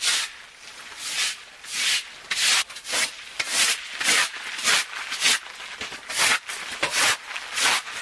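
A small broom sweeping across a plastic tarp floor: about a dozen quick scraping brush strokes, one after another, roughly every half second.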